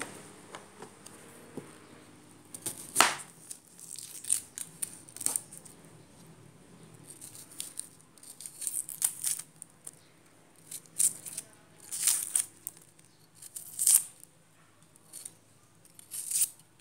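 Vegetables being handled and broken up by hand for cooking: irregular crisp snaps and crackles, a dozen or so, the loudest about three seconds in.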